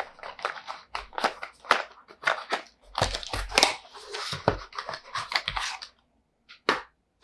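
New SSD's retail packaging being opened by hand: quick, irregular crinkling and clicking that stops about six seconds in, then one last click.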